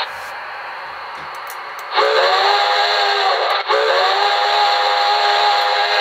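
Recorded steam locomotive sound effect from a QSI Maxx Traxx model-train sound panel, played through a speaker. A steady steam hiss runs for about two seconds, then a multi-tone chime steam whistle blows two long blasts, the second starting right after a brief break.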